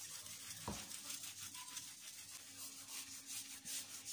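A dry paper napkin is rubbed quickly back and forth over glazed ceramic floor tiles, making a dry, faint swishing in repeated short strokes, a few each second.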